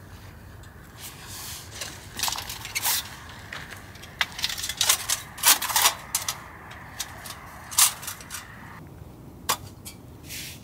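Irregular clicks, taps and short rustles of objects being handled, over a steady low rushing noise that cuts off abruptly about nine seconds in.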